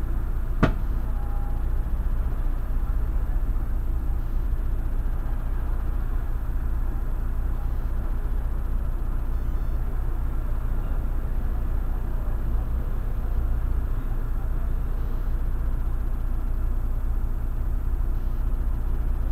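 Irisbus Crossway LE city bus running along: a steady low diesel engine and road rumble, with one sharp click a little under a second in.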